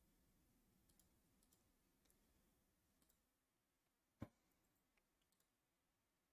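Near silence: room tone with a few faint clicks and one short, soft knock about four seconds in.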